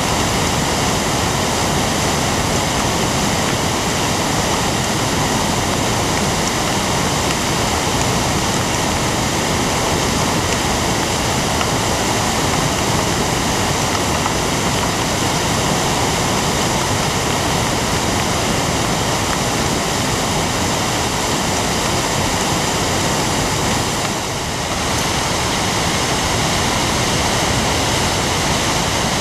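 Steady, loud rushing of a flood-swollen, muddy river in full spate, turbulent water churning past. The sound dips briefly once, about 24 seconds in.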